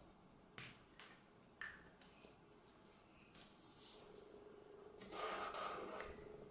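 A couple of sharp clicks, then a felt-tip marker scratching across paper in short strokes, loudest from about five seconds in.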